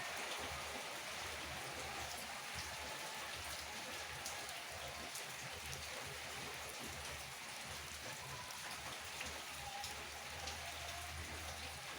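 Heavy rain falling steadily, with individual drops ticking sharply on surfaces.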